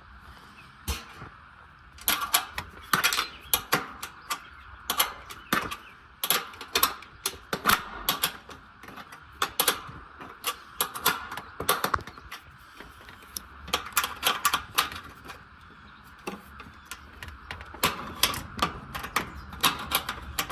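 A small 8 mm wrench tightening a bolt on a washing machine's ground wire: quick, irregular metal clicks and clinks in bunches, with a short lull about three quarters of the way through.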